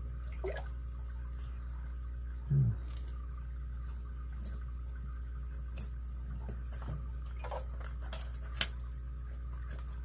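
Scattered small metallic clicks and taps of lock picks and a tension wrench working in an all-brass Yale 7-pin interlock padlock, over a steady low hum. A short low thump comes about two and a half seconds in.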